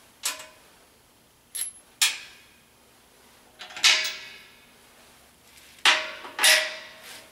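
Steel nuts and bolts clinking and clanking against the steel mounting bracket of an air compressor as they are fitted by hand: about six sharp metallic knocks, each with a brief ring.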